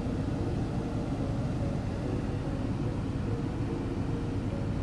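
Steady low rumble of an idling car engine, with a faint steady hum above it.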